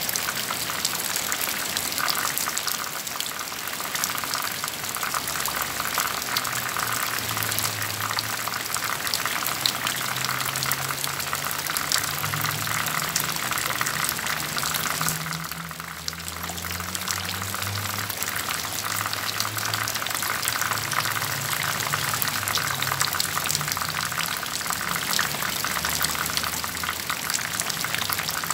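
Water falling steadily onto leaves, soil and a shade net in a dense patter of fine drops, with a brief lull about halfway through.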